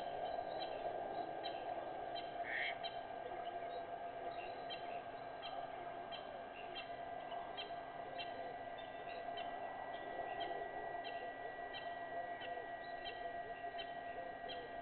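Waterhole ambience at dusk: a chorus of small animals calling in short repeated chirps over a steady drone, with one louder call about two and a half seconds in and a thin steady whistle joining about halfway through.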